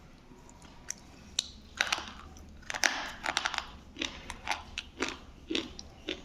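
Black slate pencil being bitten and chewed: a run of sharp, dry crunches, starting about a second in and coming thick and fast from about two seconds.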